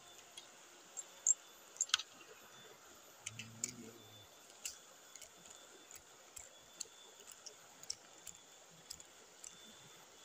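Steady hiss of a flowing river, with scattered sharp clicks and ticks at irregular intervals, the loudest about one and two seconds in, and a brief low hum around three to four seconds in.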